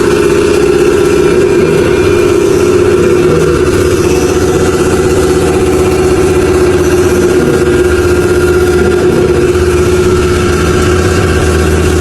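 Surface grinder running at work, loud and steady: a constant machine hum under an even hiss, with no breaks or changes.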